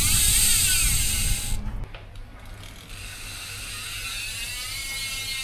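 Project 321 G3 rear hub freewheel buzzing as the mountain bike wheel spins and coasts, the pawls clicking too fast to count. It is loud for about two seconds while its pitch falls, then it drops back and buzzes more quietly with a rising pitch that levels off.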